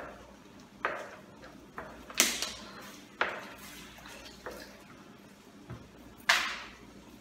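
A spoon knocking against a cooking pan as flour gravy is stirred: about eight irregular clinks with a short ring after each, the loudest two about two seconds and six seconds in.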